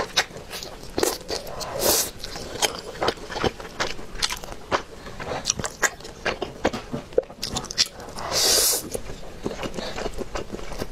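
Close-miked eating sounds: wet chewing and lip smacks on a roasted chicken drumstick, then noodles being slurped, with a long loud slurp a little past eight seconds in.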